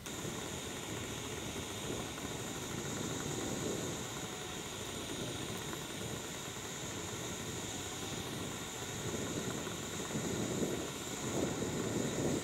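Gas-cartridge camping stove burner running with a steady rushing hiss, the low rumble of the flame swelling a few times in the last few seconds.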